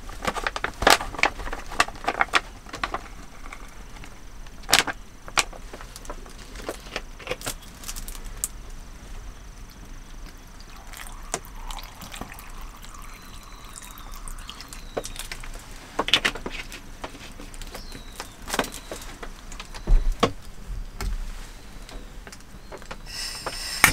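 A plastic bag rustles as chopped vegetables tumble out of it into a pot. About eleven seconds in, water pours from a plastic bottle for a couple of seconds. Scattered clicks and knocks from handling the cookware come throughout, the loudest about five seconds in and around sixteen to twenty seconds.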